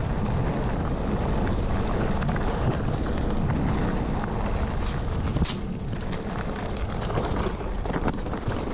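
Bicycle rattling and jolting down a steep, rocky downhill trail, with wind rushing over the microphone and a few sharp knocks from the bike over stones around the middle.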